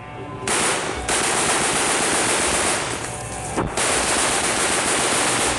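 Sustained automatic gunfire, dense and continuous from about half a second in, with a brief break a little past the middle.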